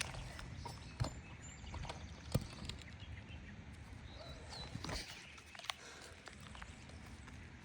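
A few sharp knocks and light scrapes from handling asphalt shingles and tools on a roof, the loudest about a second and about two and a half seconds in, over a steady outdoor background.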